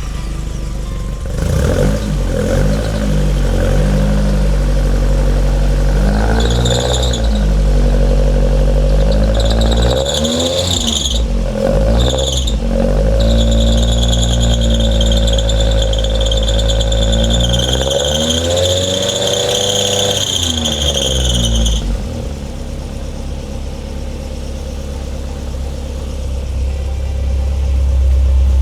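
Freshly rebuilt Ford Duratec engine running, revved up and down several times, with a high-pitched squeal over it from about six seconds in. Near the end the squeal stops and the engine settles to a steady idle.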